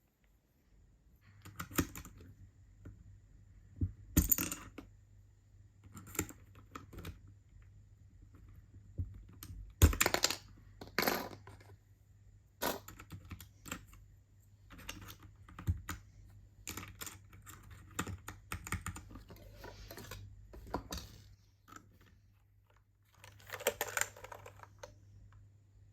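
Clicks and clacks from a Royal Kludge RK68 mechanical keyboard being handled and its keys pressed, in short bursts a few seconds apart.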